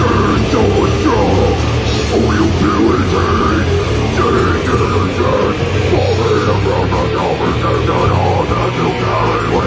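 Grindcore band playing live: loud, dense distorted guitar and drums.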